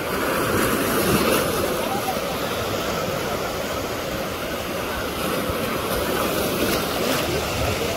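Small sea waves breaking and washing at the shoreline in a steady rush, with the mixed voices of many bathers underneath.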